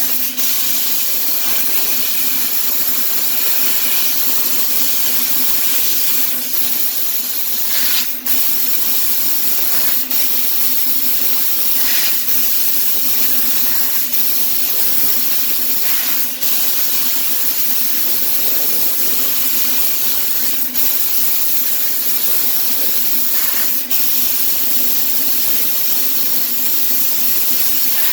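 CNC fiber laser cutting machine running, with a loud steady hiss of the cutting head and a steady low hum. The hiss briefly dips every couple of seconds.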